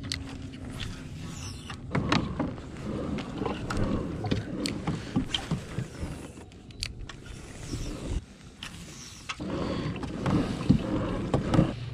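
Fishing kayak under way: water churning along the hull, with small knocks and clicks from the boat. The churn starts about two seconds in and drops away for a moment after about eight seconds, then picks up again.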